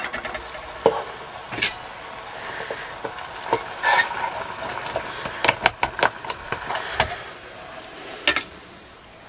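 Aluminium Trangia pots clinking and knocking as they are handled, a dozen or so sharp taps, over a steady sizzling hiss from the hot stove.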